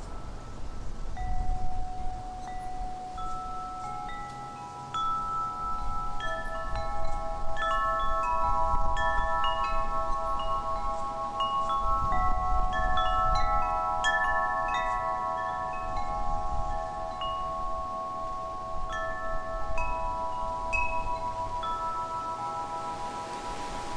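Wind chimes ringing, many clear tones struck at irregular moments, each ringing on and overlapping the others, over a low rumble.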